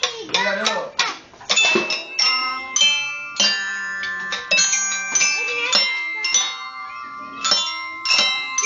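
Children striking glockenspiels with mallets: a string of ringing metal-bar notes at different pitches, the notes overlapping as they ring on.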